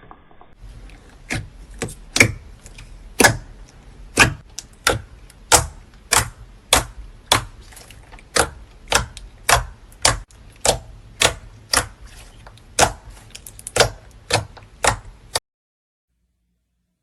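A steady series of crisp, sharp crunching clicks, nearly two a second, from slime being worked by hand. They stop abruptly shortly before the end.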